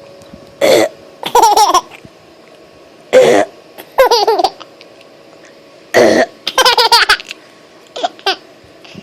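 A woman's fake burps, each answered by a baby girl's laughter: three times a short burp is followed by a run of giggling laughs, and a couple of shorter sounds come near the end.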